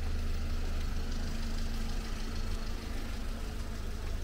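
A motor vehicle's engine running at idle: a steady low hum with a faint steady tone that fades about three seconds in.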